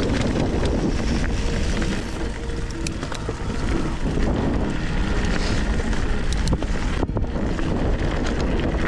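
Wind buffeting the microphone over the steady rumble of bicycle tyres on a dirt track, with scattered small clicks and rattles from the bike.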